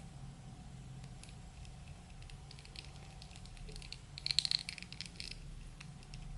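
Plastic packaging being handled: scattered light clicks, with a short burst of crinkling a little past the middle.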